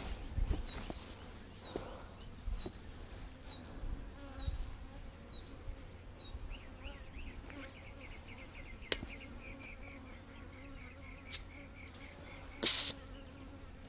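Bees buzzing around an infested spot, a faint steady drone. A high chirp repeats about once a second through the first half, a quicker run of chirps follows, and there is a short rustling burst near the end.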